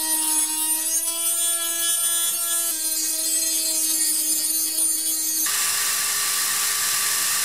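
Handheld rotary tool spinning at a steady high whine as its small grinding stone grinds down the metal of an airsoft gearbox shell. About five and a half seconds in it gives way abruptly to a drill bit boring through the shell, a harsher, hissier running with a different steady pitch.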